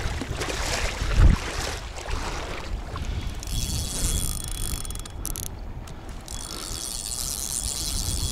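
Spinning reel being cranked under load against a heavy fish on a bottom rig, its gears whirring. A thump comes about a second in, over a low rumble of wind on the microphone.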